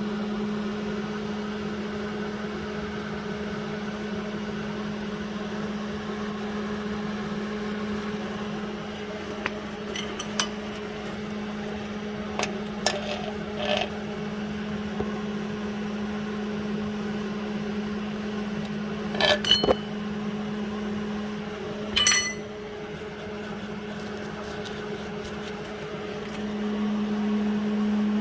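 Steady electrical hum, with a handful of light metal clinks and knocks as small steel parts and tools are handled; the loudest clinks come about two-thirds of the way through.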